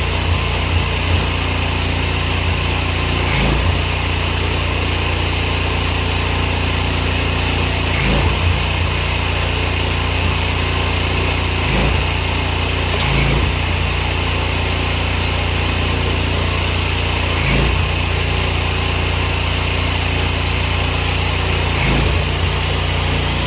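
Petrol pressure washer's engine running steadily under load with the hiss of the water jet, the sound dipping briefly every few seconds.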